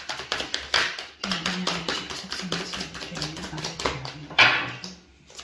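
Oracle cards being shuffled and handled: a quick, uneven run of soft clicks and taps, with a low murmuring voice under it.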